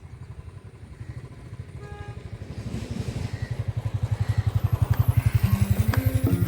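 Motorboat engine running with a fast, even low beat that grows steadily louder. Plucked music notes come in near the end.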